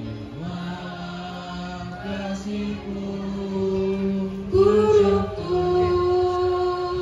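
A cappella group of young voices singing with no instruments: low voices hold a long sustained note, and a higher voice comes in above it about four and a half seconds in and holds its own note.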